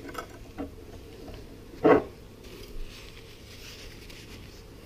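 Cloth rag rubbing along a steel linear guide rail as it is wiped clean of old grease, with faint light handling knocks and one short thud about two seconds in.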